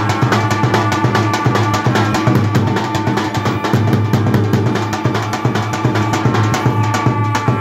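Albanian lodra, large double-headed drums, beaten in a fast, steady rhythm with a heavy stick and a thin switch. A zurna plays a loud, reedy melody over the drumming.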